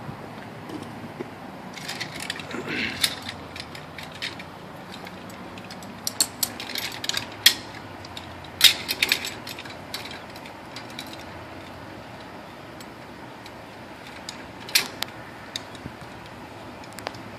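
Metal clinks and clicks of rope rescue hardware, carabiners and pulleys, being handled and clipped onto the rope and anchor. They come in scattered clusters of sharp clicks, loudest about halfway through, with a single click near the end.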